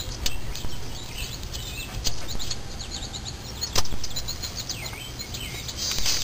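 Birds chirping repeatedly over a steady low hum, with one sharp click a little past halfway.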